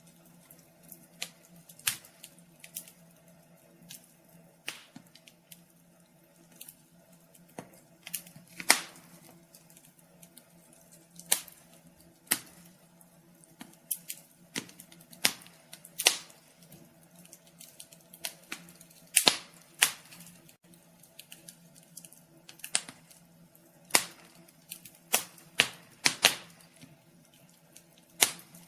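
Wood fire crackling in a fireplace: irregular sharp pops and snaps, a few louder cracks among many small ones, over a faint steady hum.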